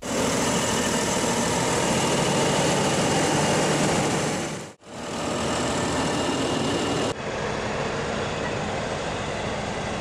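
Farm machinery running steadily: a Fendt Vario 828 tractor and the New Holland BigBaler 1290 big square baler it pulls, with a faint high whine over the engine. The sound dips out briefly just before the midpoint and shifts slightly quieter about seven seconds in.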